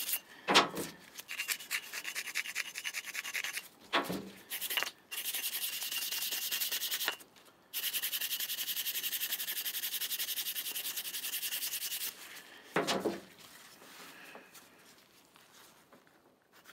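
Fast back-and-forth rubbing on a steel chisel, working pencil graphite into its pitted surface to give a shiny finish. The rubbing stops briefly a few times and fades near the end, with three short knocks from handling, the loudest about half a second in.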